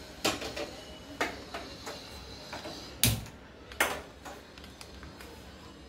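A few sharp clicks and knocks of an aluminium pot being set on a gas stove and handled at the burner, with the loudest knock about three seconds in.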